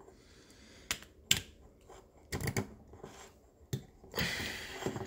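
Several sharp clicks and taps, then a short scraping rub about four seconds in, as a wrist pin is worked by hand into a chainsaw piston and connecting rod, past thrust washers held by a rolled piece of plastic.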